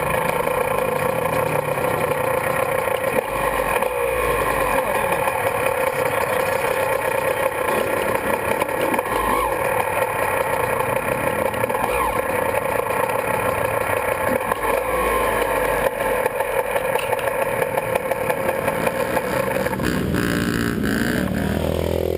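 Honda CR125's single-cylinder two-stroke engine idling steadily while the bike stands still. Near the end the steady engine note breaks up and changes.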